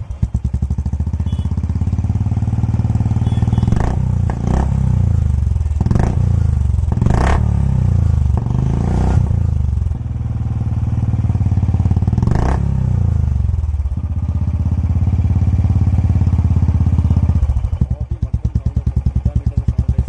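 Royal Enfield Classic 350 single-cylinder engine running through an aftermarket Neo RC silencer, with a deep, steady thump. The revs rise and fall several times, with short sharp cracks at some of them, and near the end it settles to a slower, even beat of single exhaust pulses.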